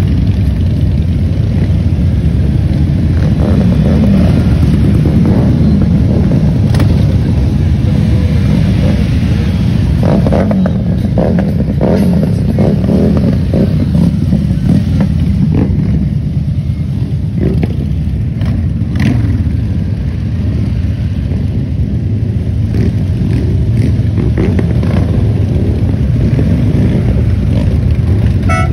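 A procession of heavy cruiser and touring motorcycles riding slowly past one after another, their engines running in a steady low drone with occasional short revs.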